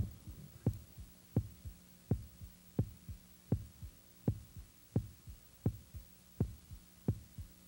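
A soundtrack heartbeat pulse: low double thumps, a strong beat and a softer one, repeating steadily about every 0.7 seconds over a faint steady hum.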